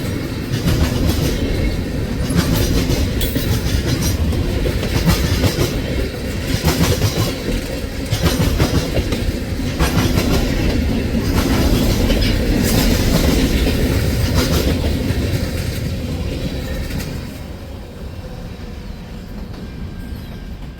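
Railroad cars rolling past, a steady rumble with the wheels clicking over rail joints in a clickety-clack. It grows quieter about three-quarters of the way through.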